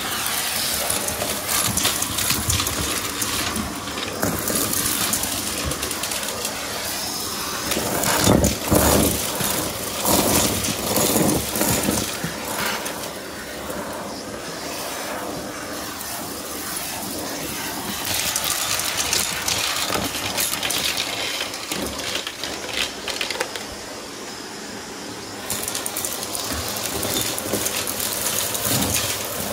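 Shark cordless stick vacuum running through its bare wand on carpet, sucking up small plastic pieces that rattle and click as they fly up the tube. The clatter is busiest about eight to twelve seconds in.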